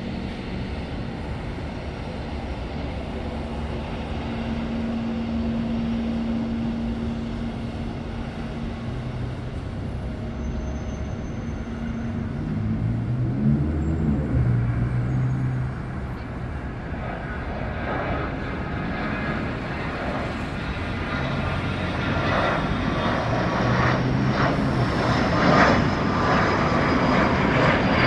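Dassault Falcon 900 business jet's three turbofan engines running for takeoff: a steady roar that grows louder over the second half, with a high turbine whine that slides slightly down in pitch near the end.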